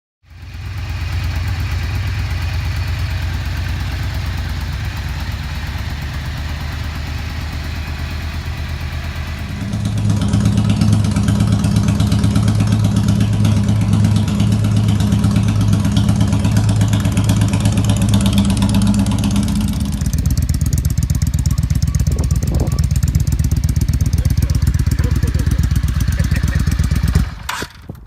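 Yamaha Drag Star XVS400's air-cooled V-twin idling steadily through different exhausts, the stock system and a Vince Hines straight-through pipe with and without baffles. The exhaust note changes abruptly about ten seconds in and again about twenty seconds in, and the middle stretch is the loudest and deepest.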